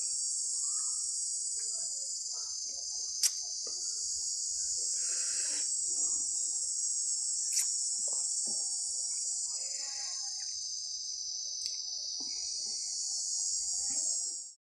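A steady, high-pitched chorus of insects, with three sharp clicks a few seconds apart. It cuts off suddenly near the end.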